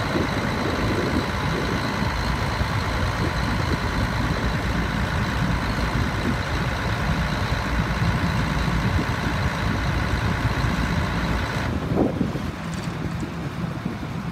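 John Deere 9400 articulated four-wheel-drive tractor's six-cylinder diesel engine running steadily, with a thin high whine over the engine note. About twelve seconds in the whine and the higher sound drop away and the engine runs lower and quieter.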